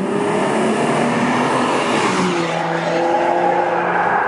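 Audi A4 B8 3.0 TDI V6 diesel with an aftermarket BBM Motorsport exhaust driving past under throttle, loud, the engine note shifting in pitch about two seconds in.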